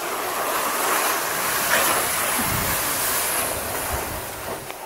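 Aluminum canoe hull grating and scraping over wet sand as it is pushed into the water, a loud continuous rasping rush that stops abruptly near the end.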